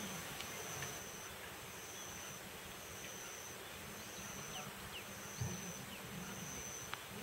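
An insect trilling outdoors: a high, steady buzzing tone that repeats in trills of about a second each, with short breaks between them.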